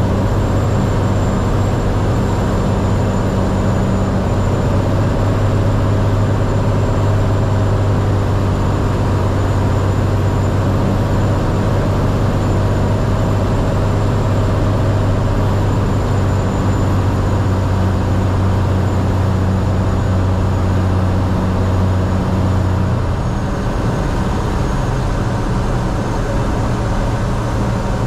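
Cirrus SR22's six-cylinder piston engine and propeller droning steadily, heard inside the cockpit. Near the end the low drone drops as power comes off for the landing.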